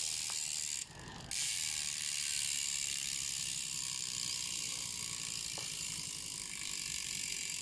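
Freehub ratchet of a Sagmit Force One rear wheel hub clicking rapidly and continuously as the wheel spins freely. The clicking breaks off briefly about a second in, then carries on.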